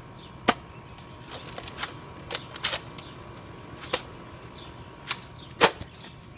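Nerf blasters in a dart fight, giving an irregular run of about nine sharp pops and clacks from firing and priming. The loudest come about half a second in and about a second before the end.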